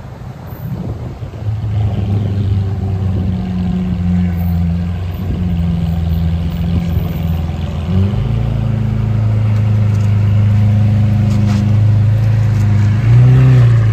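Lamborghini Aventador S's V12 with a Balboni aftermarket exhaust running at low revs as the car creeps along, a steady deep drone that gets louder about eight seconds in. Near the end there is a short rev blip.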